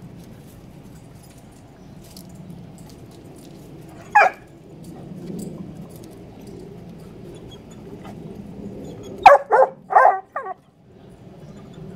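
Black Labrador barking at a gecko hidden in a woodpile: one short bark about four seconds in, then three quick, louder barks near the end.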